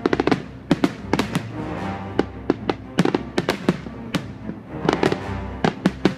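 Aerial fireworks display bursting with rapid, irregular sharp bangs, several a second, over background music.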